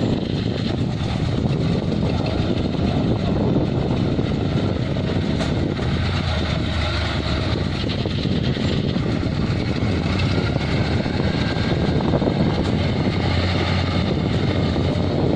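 Kubota farm machine's diesel engine running steadily under load, a continuous low drone that stays at one level.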